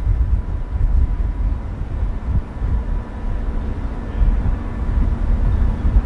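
Strong blizzard wind buffeting the microphone: a loud, gusty low rumble that rises and falls.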